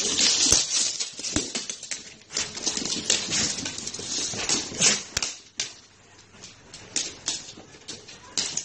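Dogs scrabbling and shuffling about a fabric dog bed: a rapid, irregular run of scratchy clicks and rustles, easing off briefly past the middle before picking up again.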